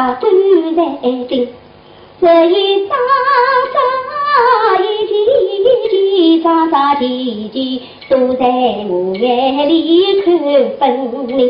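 A high female voice singing a Shanghai opera (Huju) passage, with gliding, ornamented phrases and long held notes and a short break about two seconds in.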